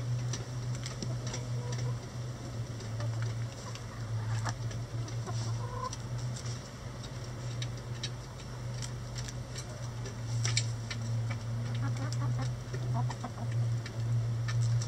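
Hens pecking at a hanging cabbage, with many short sharp pecking taps and a few clucks, over a steady low hum.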